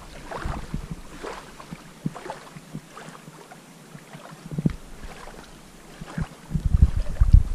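Wind buffeting the microphone in gusts, strongest at the start and again near the end, over small waves lapping at the lake shore.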